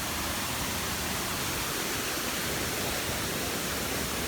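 Steady, even rush of water plunging down a tall waterfall, the first tier of Mantayupan Falls.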